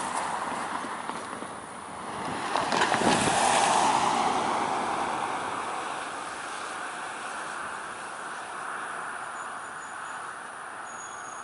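A vehicle passing by, its noise swelling to a peak about three seconds in and then slowly fading. A thin high insect chirp comes in near the end.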